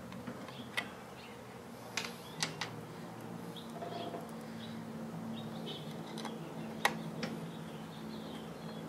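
A handful of light, sharp metal clicks and taps from a small screwdriver working the screws of a new control board on a Tesla drive unit's inverter, the loudest about seven seconds in, over a steady low hum.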